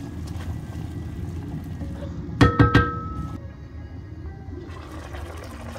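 A glass pot lid clattering onto a cooking pot: three or four quick clinks about two and a half seconds in, ringing briefly. Under it, meat and onions fry steadily in the pot.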